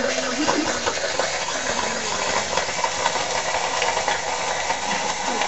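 A gummy bear burning violently in molten potassium chlorate inside a test tube, giving a steady, loud hiss of rapid combustion as the sugar is oxidised.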